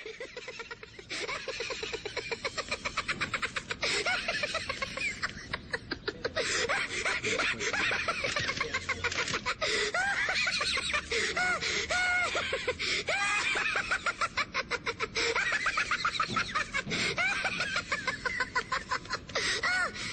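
People laughing and snickering, in quick repeated bursts with rising and falling pitch, running on without a break.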